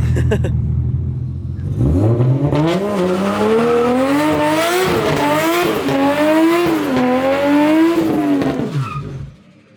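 Nissan 180SX engine running low, then revving hard about two seconds in, its revs bouncing up and down high under a hiss of spinning tyres in a burnout. The revs drop away near the end.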